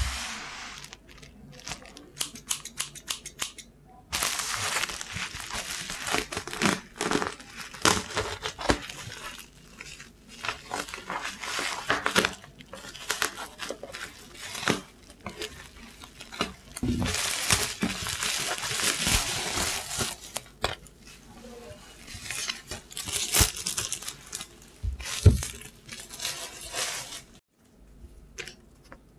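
Packaging being opened by hand: a run of sharp clicks and taps, then from about four seconds in repeated bursts of tearing and crinkling, with more clicks among them.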